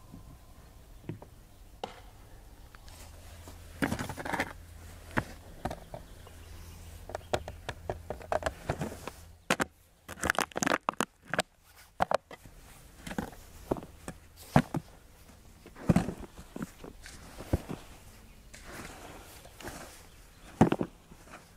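Metal shovel scraping and scooping through heaps of soda foam on sandy ground: irregular scrapes, soft crunches and knocks.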